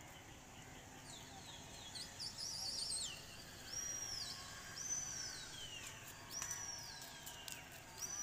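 Black kites calling: a run of high wavering whistles, then about four long whistled cries that each slide downward at the end.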